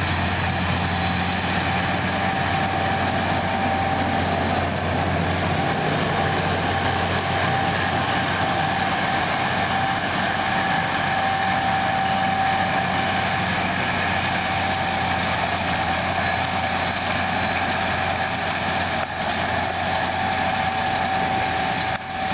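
Case IH 5150 Plus tractor's six-cylinder diesel engine running steadily while pulling an Överum Tive 3304 seed drill, with a steady high whine over the engine hum.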